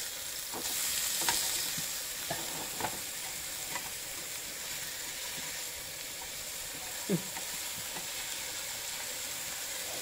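Indian mackerel pieces sizzling steadily in hot oil in a nonstick frying pan as they are turned over with a spatula, with a few light knocks, the clearest about seven seconds in.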